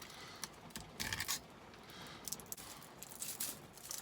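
Ethernet cable being handled while its plastic jacket is split with the nylon rip cord: short scratches, scrapes and rustles, the loudest cluster about a second in and more in the second half.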